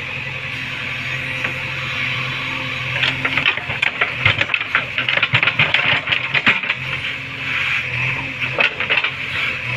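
JCB backhoe loader's diesel engine running steadily. About three seconds in, a fast clattering and clicking of metal parts starts over it.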